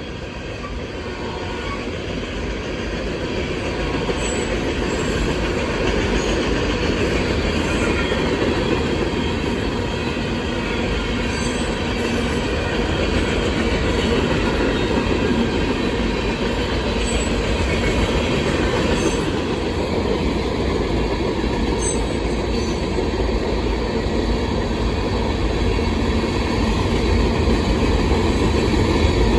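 Loaded rock train's freight cars rolling past at close range: a steady rumble of steel wheels on rail with some clicking over the rail joints and short high-pitched wheel squeals here and there. The last of the locomotive's horn note dies away in the first second.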